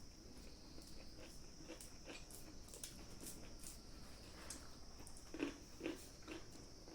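A person chewing food close to the microphone, with small wet clicks and smacks and a couple of louder mouth sounds about five and a half and six seconds in.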